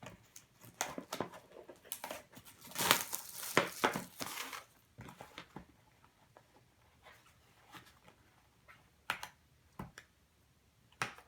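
Scissors and hands working at the plastic wrapping of a sealed trading-card box: crinkling, rustling and scattered clicks, busiest from about three to four and a half seconds in, then a few single clicks.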